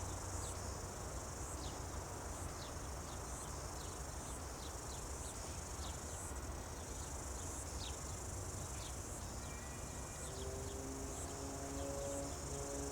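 Insects chirring steadily outdoors in a continuous high pulsing drone, with short high chirps over it. About ten seconds in, a few long held musical notes begin underneath.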